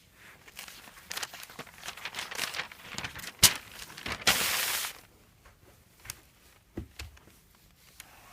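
Paper of a fireworks catalogue being handled, rustling and crinkling. A sharp click about three and a half seconds in is the loudest moment. Just after it comes a louder rush of paper noise lasting about half a second, then a few light ticks and rustles.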